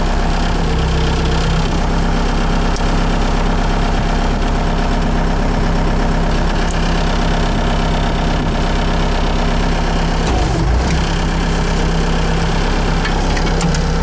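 Skid steer loader's engine running steadily while its hydraulics work the swing backhoe attachment, with a brief change in the engine note about ten seconds in.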